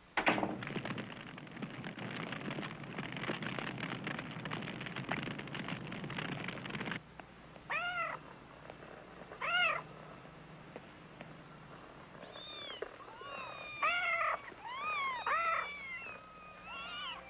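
A steady rough noise for about seven seconds, then a cat meowing twice, followed by several overlapping high mews of kittens calling together.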